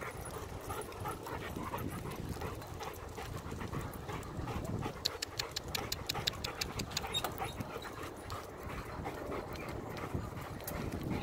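German Shepherd panting as it runs beside a moving bicycle, over a steady rush of tyre and path noise. A quick run of sharp ticks comes about halfway through.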